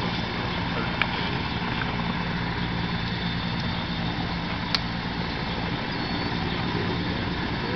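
Sikorsky S-64 Skycrane helicopter hovering low with its snorkel in the water, drafting water to fill its tank: a steady rotor and turbine drone. Two brief sharp clicks, about a second in and near five seconds.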